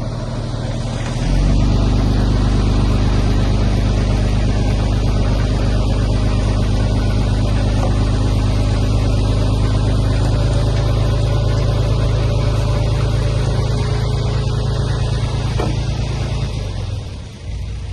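A heavy construction machine's engine runs under load, with a steady low note. It picks up about a second in and eases off near the end.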